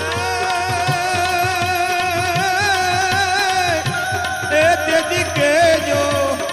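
Gujarati devotional folk music: a long held melody line that wavers and ornaments, over a steady hand-drum beat.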